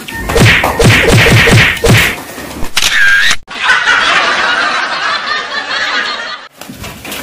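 A quick run of about eight slaps and blows landing on a body during a scuffle, then, after a short break, about three seconds of steady noisy hiss.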